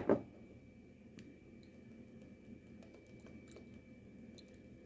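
A sharp knock right at the start, then faint scattered clicks and ticks as fish sauce is dribbled over raw prawns on a ceramic plate.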